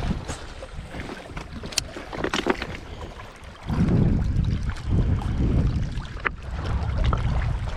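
Wind buffeting the microphone in gusts, strongest from about halfway through, with a few sharp clicks.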